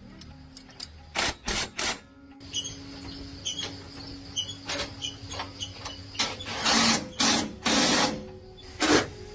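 Metal tools clinking and knocking during truck wheel and axle work, with a steady low hum through the middle and several louder rushing bursts late on.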